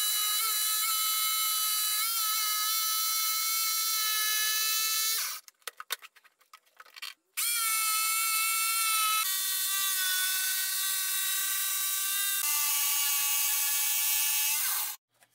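Bosch jigsaw running with a steady motor whine as it saws a 45-degree bevel into the edge of a wooden circle. It stops about five seconds in, leaving a couple of seconds of near silence with a few faint clicks, then starts again and runs until just before the end.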